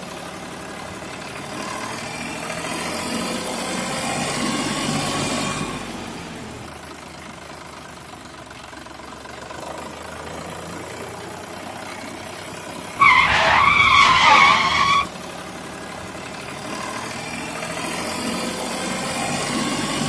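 Tractor engine sound effect running and swelling up and down in level. About two-thirds of the way through, a much louder warbling electronic tone sounds for about two seconds.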